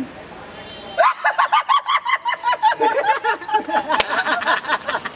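Several young men laughing together, starting about a second in: rapid overlapping pulses of loud laughter that keep going almost to the end.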